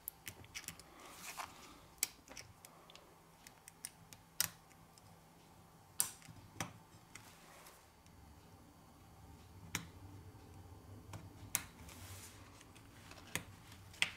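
Irregular sharp clicks and light taps, a dozen or so, from a plastic pry tool and gloved fingers working on a smartphone motherboard as flex-cable connectors are pressed back into their sockets.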